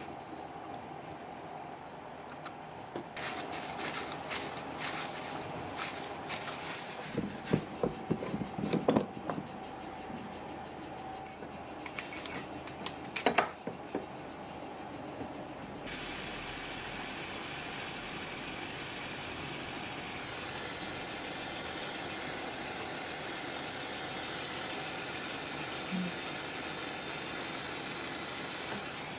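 A few light clicks and several louder knocks as a steel blade is handled and clamped on a wooden bench. About halfway through, a steady, finely fluttering hiss starts and keeps going: a handheld gas torch heating the blade's tang.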